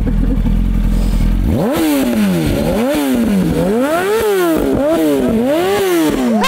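Motorcycle engine idling, then revved hard from about a second and a half in: about five throttle blips, the pitch climbing and falling with each, roughly one a second.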